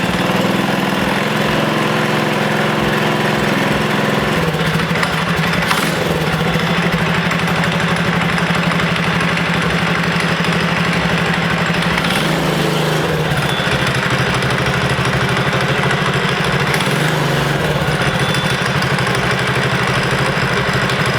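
Stage 2 Predator 212 single-cylinder four-stroke engine on a mini bike running steadily at idle, its pitch stepping down slightly about four seconds in and again around thirteen seconds in.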